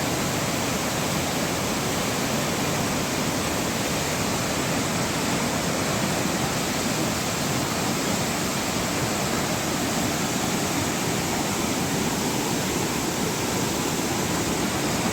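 Fast water pouring from a dam, a steady, unbroken rushing noise.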